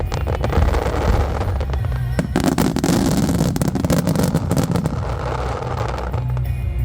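Starmine fireworks display: many aerial shells bursting in quick succession with dense crackling, thinning out about six seconds in.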